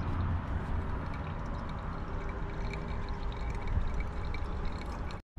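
Steady road and engine noise of a moving vehicle heard from inside the cabin, a low rumble with hiss above it.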